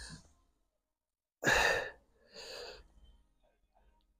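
A man's forceful breath out about a second and a half in, then a softer second exhale, as he strains to squeeze his quads hard.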